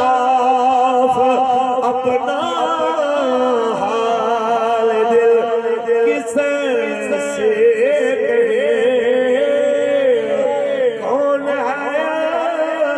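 A man singing an Urdu naat into a microphone, drawing out long notes with wavering, ornamented turns.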